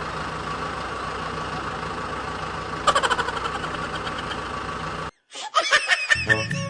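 A steady engine-like running hum, with a short burst of rattling clicks about three seconds in. It cuts off abruptly just after five seconds, and music with a beat starts near the end.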